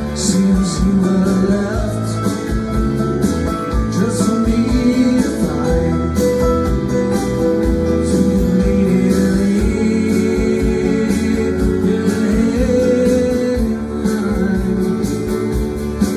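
A band playing a country-rock song: guitars over a steady drum beat, with singing.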